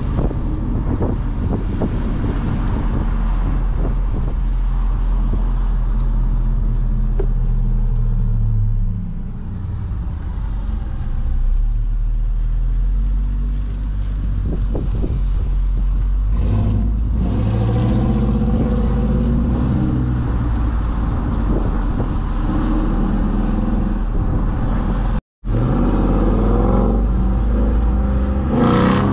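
Car engines and tyre noise during a slow cruise, picked up from the open trunk of a 2021 Honda Civic Sport with a Dodge Charger following close behind. The engine drone rises and falls in pitch with the speed, and the sound cuts out for a moment near the end.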